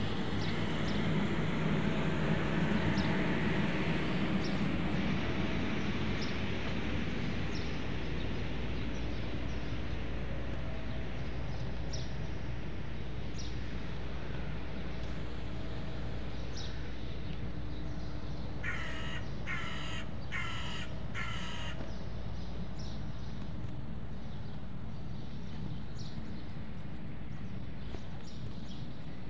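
A crow caws four times in quick succession over steady street background noise. A vehicle passes in the first few seconds.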